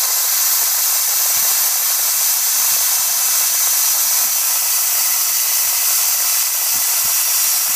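Dupli-Color Bed Armor air spray gun held open, a steady loud hiss of compressed air driving soapy water out of the nozzle as a fine mist: a power flush to clean the pickup hose and tip.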